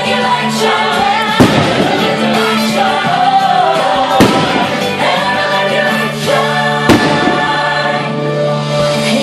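Fireworks show music with a choir singing, loud and continuous, with three sharp firework bangs about a second and a half, four seconds and seven seconds in.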